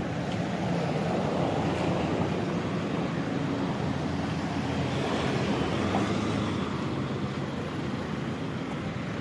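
Road traffic: vehicle engines running in congested traffic as a steady hum, growing somewhat louder in the middle.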